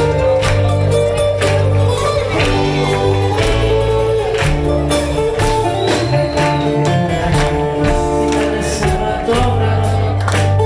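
Live band playing a Greek popular song on bouzouki, electric guitars, drums and keyboards, with a steady beat and a strong bass line.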